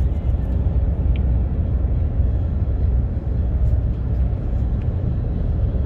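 Steady low rumble of a car driving at road speed, heard from inside the cabin: tyre and road noise with engine hum.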